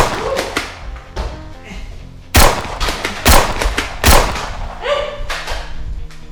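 Several sharp shots from Nerf blasters being fired in a Nerf battle, the loudest coming in a quick run about two and a half to four seconds in, over background music.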